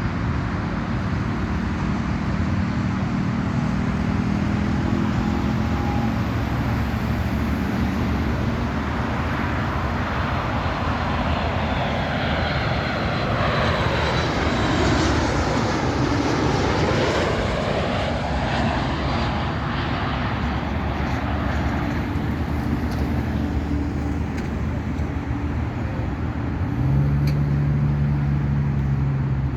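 Boeing 737 MAX 8 airliner with CFM LEAP-1B turbofans passing on its landing approach: a steady jet roar that sweeps in pitch as it goes by, loudest about halfway through.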